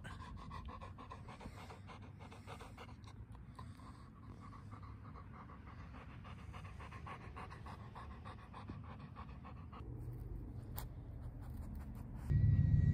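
Golden retriever panting steadily close to the microphone, mouth open and tongue out. Near the end a louder low rumble with a faint, slowly falling high whine sets in.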